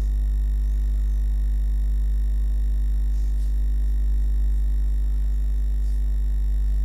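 Steady low electrical hum with a faint buzz of overtones above it. A few very faint, brief hisses come about three seconds in and again near six seconds.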